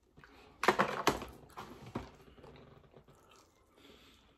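Close-miked chewing and biting of fried chicken, with sharp mouth clicks loudest about a second in and again at two seconds, then softer chewing.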